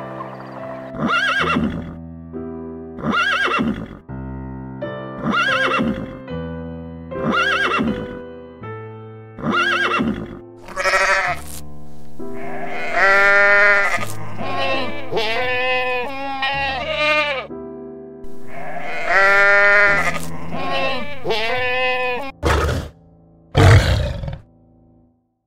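Soft background music with animal calls laid over it. First comes a short call repeated about every two seconds, then a run of goat bleats, then two loud lion grunts near the end.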